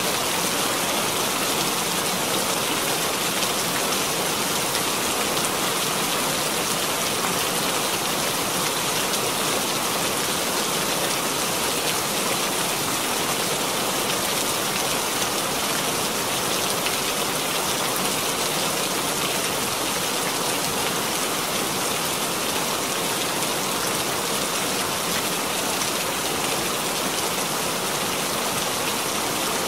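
Steady heavy rain falling and splashing on the ground, an even, unbroken hiss with no thunder.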